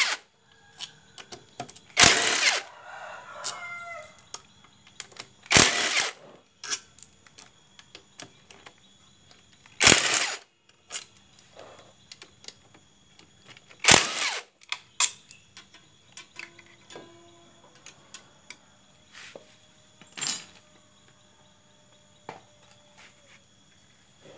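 A power tool runs in five short bursts a few seconds apart, loosening the bolts on a Honda Beat scooter's CVT cover, with clinks of bolts and tools between the bursts. A rooster crows in the background a few seconds in.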